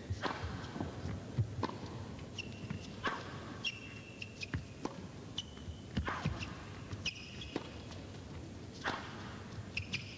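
Tennis rally: racket strikes on the ball and ball bounces every second or so, with short high squeaks from the players' shoes on the court.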